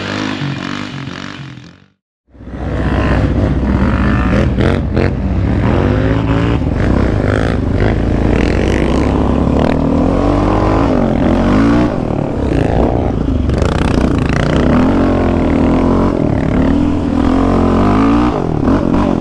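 Music fades out over the first two seconds and cuts to a moment of silence, then a sport quad's engine runs hard, revving up and easing off over and over as it is ridden over dirt, with occasional knocks.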